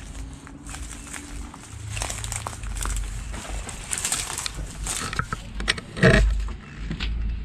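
Footsteps crunching through dry leaves, twigs and brush, with crackling and rustling throughout, and a louder short thump about six seconds in.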